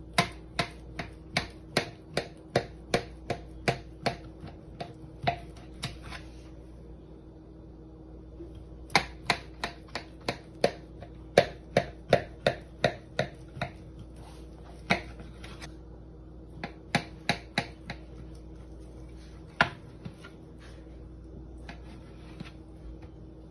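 Kitchen knife sawing through a baked chicken slab, its blade clicking sharply against the metal baking tray about three times a second, in runs with pauses between cuts.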